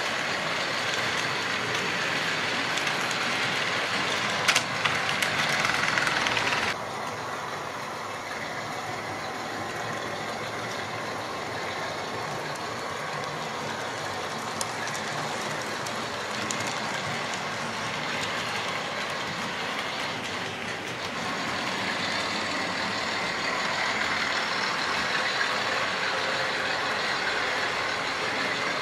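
Model railway locomotives running round the layout, a steady whirr and rattle of small electric motors and wheels on the rails. It drops suddenly about seven seconds in and grows louder again a little after twenty seconds.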